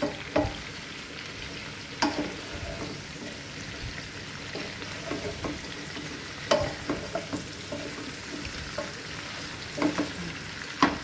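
Chicken feet frying in a non-stick pan with onions and bay leaves, a steady sizzle. A wooden spatula stirs them, knocking and scraping against the pan about two seconds in, again past six seconds and near the end.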